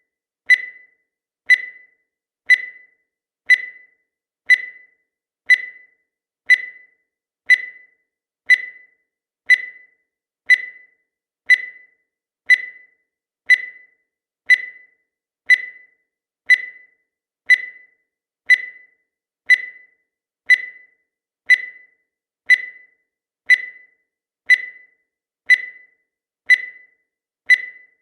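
Countdown timer sound effect: a short, high beep once every second, each dying away quickly, in an even unbroken series.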